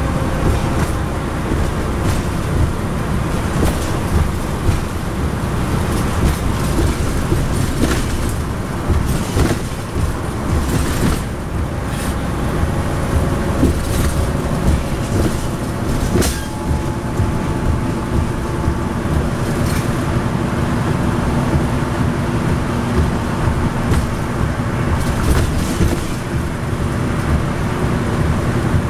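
Cabin noise of a 2010 NABI 40-SFW transit bus under way at road speed, heard from a seat near the rear: the Cummins ISL9 diesel and the tyres give a steady low rumble, with a faint whine over it. Short sharp rattles come and go through it.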